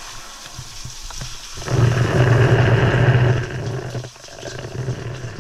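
Sea water churning and splashing, swelling into a louder rush with a low rumble for about a second and a half in the middle.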